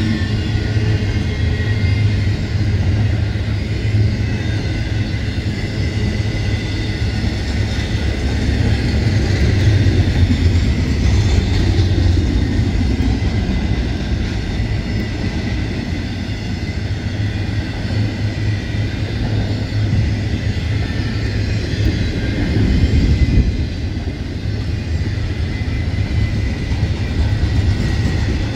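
Intermodal freight train rolling past at close range: a steady, loud rumble of wheels on the rails, swelling slightly twice.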